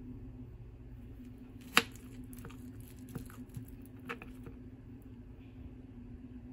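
A knife cutting through soft steamed kabocha squash on a cutting board: a few light clicks and knocks of the blade against the board, the sharpest about two seconds in, over a steady low hum.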